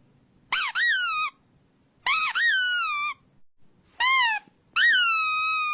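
Pug puppy howling in four high-pitched calls, each rising then falling, the last one drawn out and held.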